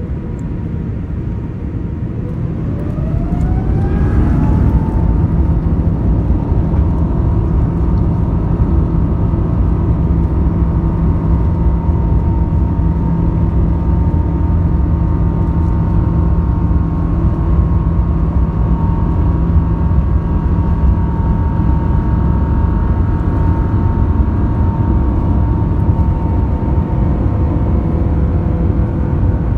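Airbus A350's Rolls-Royce Trent XWB engines heard from inside the cabin, spooling up to takeoff thrust. A whine rises in pitch over the first few seconds, then settles into a steady high whine over a loud low rumble as the aircraft rolls down the runway for takeoff.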